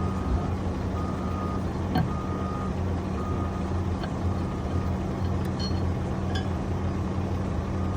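A diesel engine running steadily with a reversing alarm beeping about once a second, plus a few light metallic clicks as screws are set into the hydraulic filter cover plate, the loudest about two seconds in.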